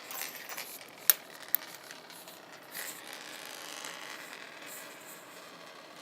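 Two fidget spinners spinning on a table: two sharp clicks about a second in, then a faint steady whir.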